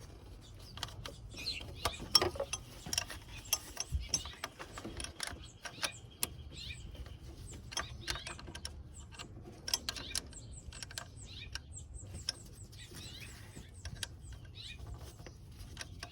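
Irregular metallic clicks and taps of a wrench working the bolt that holds the power steering inlet hose, tightening it snug.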